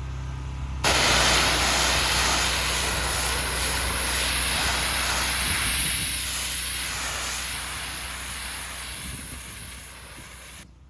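Pressure washer running with a steady low engine hum; about a second in the water jet starts with a sudden loud hiss and sprays steadily, then cuts off sharply near the end.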